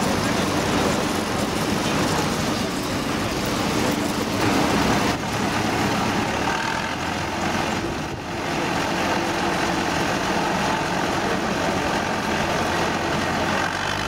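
Vintage combine harvesters working, a steady engine and threshing-machinery drone. The sound changes abruptly about five seconds in and again around eight seconds, as a different machine is heard.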